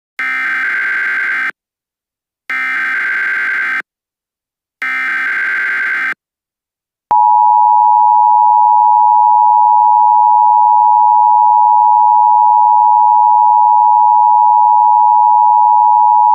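Emergency Alert System signal: three bursts of SAME digital header data, each just over a second long with about a second between them. About seven seconds in the loud, steady two-tone attention signal starts, marking the start of a new alert.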